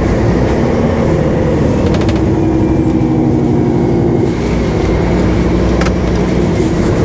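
HGV car transporter driving along, heard from inside the cab: a steady diesel engine drone with road noise, and a few light knocks about two seconds and six seconds in.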